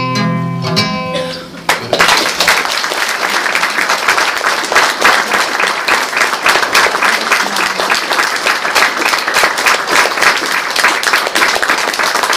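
The last chord of a nylon-string classical guitar rings out and dies away. From about two seconds in, an audience applauds steadily.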